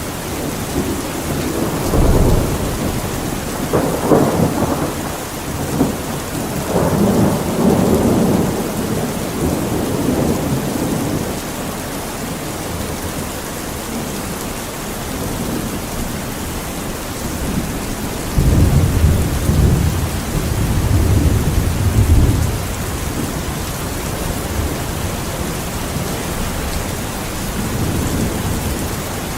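Steady rain with low rolling rumbles of thunder swelling several times, the longest about two-thirds of the way through.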